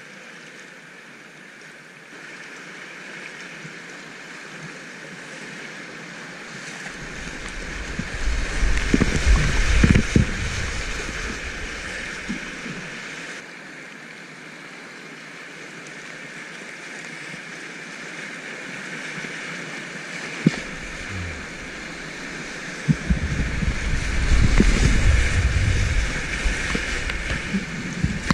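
River rapids rushing steadily past a kayak. Heavy, low, rumbling splashes come twice as the boat runs through whitewater, about a third of the way in and again near the end, and these are the loudest part.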